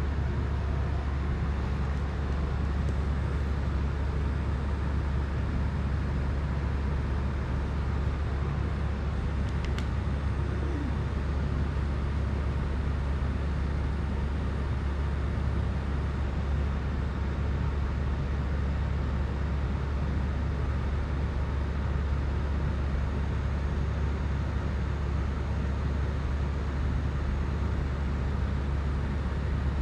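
Steady low rumble and hum with a faint hiss above it, with one faint tick about ten seconds in.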